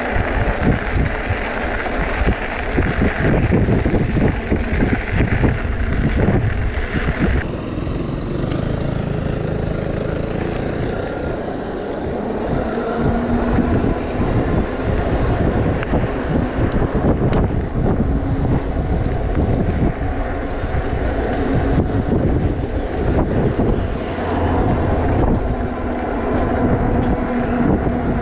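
Wind buffeting the microphone on a moving e-bike, a dense, gusty rumble. A higher hiss that sits over it cuts off suddenly about seven seconds in.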